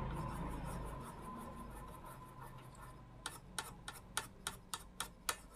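Small brush scrubbing cleaning chemical over a driver IC on a TV panel's source circuit board: a faint rubbing scratch that fades over the first few seconds. About three seconds in, a run of sharp, evenly spaced ticks follows, roughly three a second, for about two seconds.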